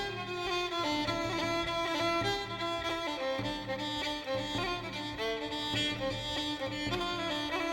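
Background music played on bowed strings, with a violin carrying slow held notes over lower strings.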